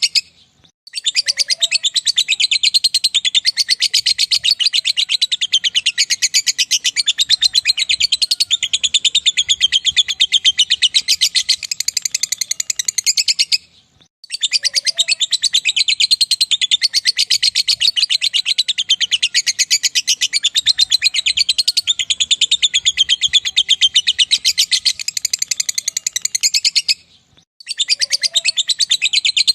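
Lovebird's long 'ngekek' song: a rapid, unbroken, high-pitched chattering trill, in two long bouts of about thirteen seconds each, with short breaks about a second in, halfway through and near the end.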